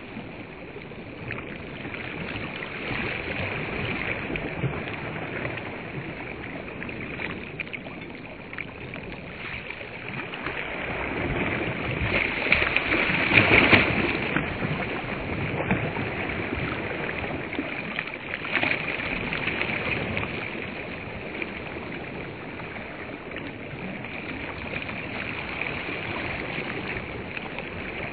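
Small waves washing onto a sandy shore, a noisy wash that swells and fades, with its loudest surge about halfway through.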